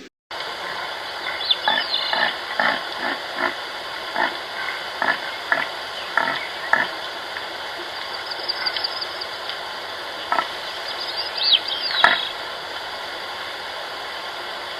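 An animal making a run of short, squeaky calls, about two a second at first, then a few high rising-and-falling squeaks later on, over a steady hiss.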